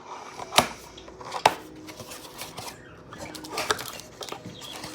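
Handling and opening of a cardboard trading-card box and its packaging: rustling and crinkling, with two sharp clicks about a second apart near the start.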